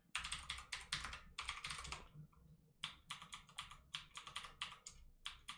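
Typing on a computer keyboard: quick runs of keystrokes, with a short pause about two seconds in.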